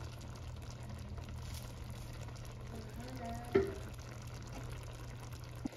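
Pot of chicken pieces in tomato and vegetable sauce cooking with a faint sizzle over a steady low hum, with a single sharp knock about three and a half seconds in.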